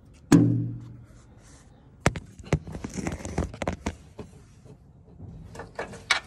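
Camera and hand handling noise: one loud knock with a brief low ring about a third of a second in, then scattered clicks, taps and rustles as the camera is moved about.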